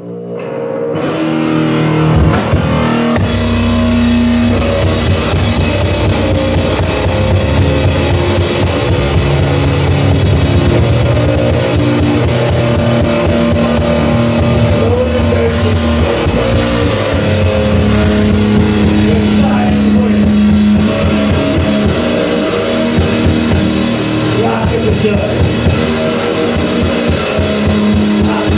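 A live rock band playing, with electric guitar and a drum kit. It starts suddenly out of silence.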